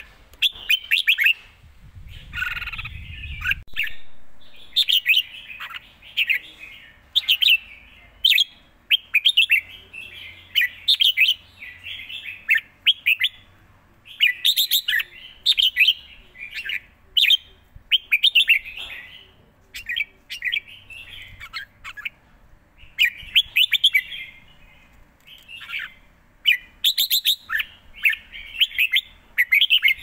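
A red-whiskered bulbul singing: short, quick whistled phrases repeated about once every second or two with brief pauses between them.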